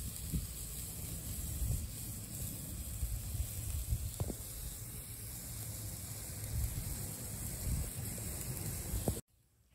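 Wind rumbling on the microphone over the steady hiss of chicken, burgers and kebabs sizzling on a charcoal grill, with a faint pop about four seconds in and another near the end.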